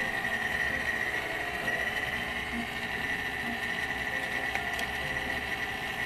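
A steady machine hum with a constant high whine over a low rumble.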